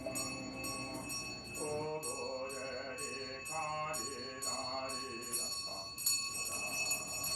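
Music: a chant-like voice sings slow, wavering phrases over a steady jingling of small bells at about two strokes a second.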